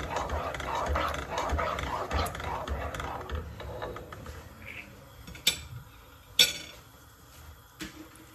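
A slotted spatula stirring thick sauce in a nonstick saucepan, a rhythmic scraping at about two strokes a second that fades out about four seconds in. Then come two sharp knocks about a second apart, the loudest sounds, and a fainter knock near the end.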